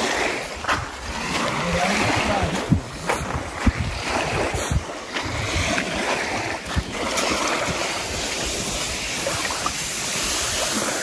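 Lake waves washing in over the shallows, a steady rushing with wind buffeting the microphone and a few short sharp knocks or splashes scattered through it.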